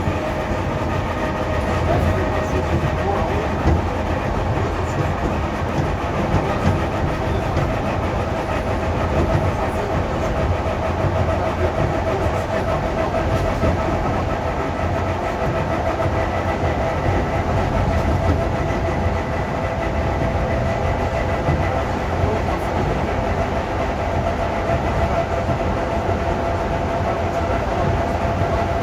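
ED4M electric multiple unit running along the track: a steady rumble of wheels on rail with a steady whine from the traction motors and gearing.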